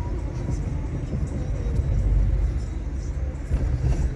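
Car being driven: a steady low engine and road rumble that swells briefly about halfway through.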